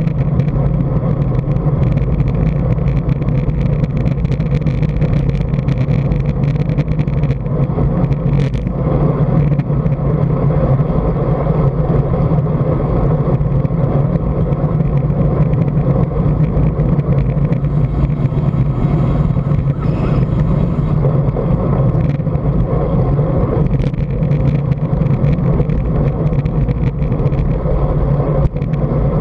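Steady wind buffeting and tyre rumble on a bicycle-mounted action camera while riding on the road, with a couple of brief knocks.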